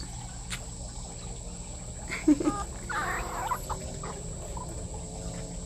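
Seven-week-old boxer puppy making a few short squeaky whimpers and yips while being held, the sharpest just over two seconds in.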